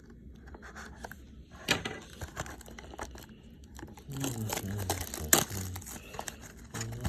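Plastic or foil trading-card pack wrapper being torn open and crinkled by hand, with irregular sharp crackles.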